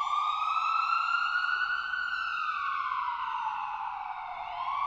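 Mobile phone's emergency alert sounding a siren-like wailing tone that rises, falls slowly, and starts rising again near the end: the government cell-broadcast emergency alert, here sent as a test.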